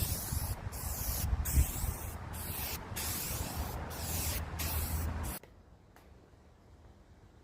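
Spray paint hissing from an aerosol can in a run of spray strokes with brief breaks between them, stopping suddenly about five seconds in.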